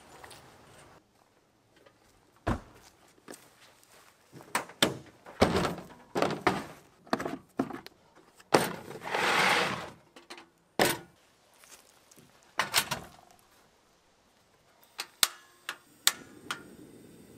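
Handling knocks, clunks and clicks as a portable gas stove is set down and set up on a pickup's ribbed bed liner, with a hiss lasting about a second midway and three sharp clicks near the end.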